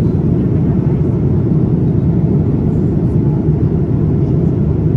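Steady low rumble of airliner cabin noise in a Boeing 787-9 at cruise: engine and airflow noise heard from inside the cabin.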